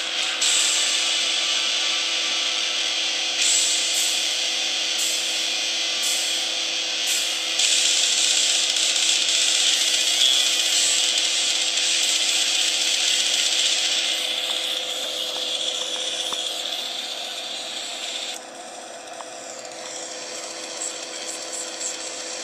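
Small cone loudspeaker driven by a homemade PWM class-D amplifier (a flyback transformer's low-voltage winding), playing music from an iPod as a noisy, hissy sound with steady tones under it. About 18 seconds in, the high hiss drops away and the sound gets quieter.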